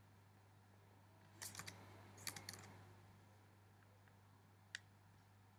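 Faint computer keyboard and mouse clicks in small clusters, about a second and a half in and again around two and a half seconds, with one more click near the end, over a low steady hum.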